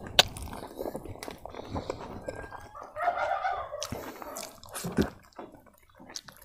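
Close-miked wet chewing, smacking and sharp mouth clicks of someone eating gelatinous braised pig trotter with rice.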